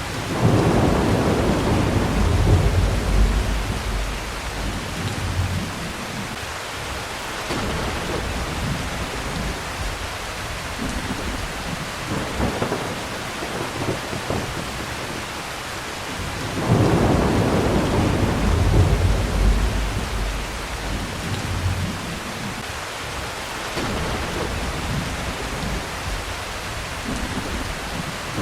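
Steady rain with rolling thunder: a long low rumble of thunder starts just after the beginning and another about two-thirds of the way through, with fainter rumbles between.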